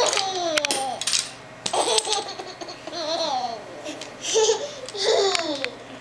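Baby laughing in a string of short, high-pitched laughs, with a few light clicks from a plastic toy being shaken.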